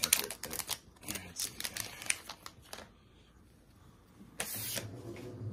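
Cards being handled and the plastic wrapper of a trading-card pack crinkling, as a run of quick sharp clicks and crackles. A short swish of cards sliding comes about four and a half seconds in, and after it a low steady hum begins.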